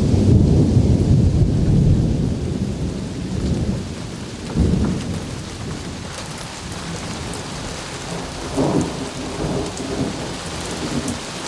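Thunder rumbling over steady rain during a severe thunderstorm: a long low rumble that fades over the first few seconds, another peal about four and a half seconds in, and fainter rumbles later on.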